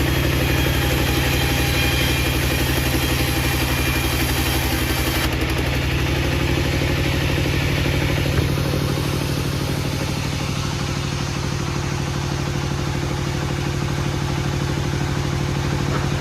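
An engine running steadily at an even speed, with a fast regular pulse, likely powering sawmill equipment. It gets slightly quieter and duller about halfway through.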